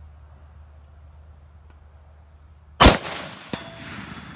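A single shot from a scoped hunting rifle fired off a bench, almost three seconds in, its report trailing off in a long echo. A second, much smaller sharp click follows under a second later.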